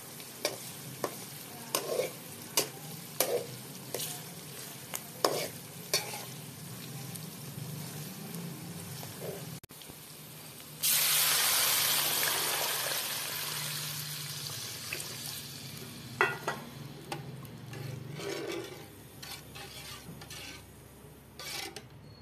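Sliced onions and green chillies frying in hot oil, sizzling, while a metal spatula stirs them, clinking and scraping against the metal pot. About eleven seconds in the sizzle suddenly gets much louder and then slowly dies down.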